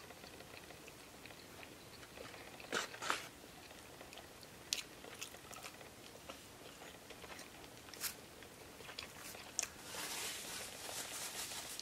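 Close mouth sounds of chewing a fried chicken tender in toast: soft chewing with a few sharp crunches, the loudest about three seconds in.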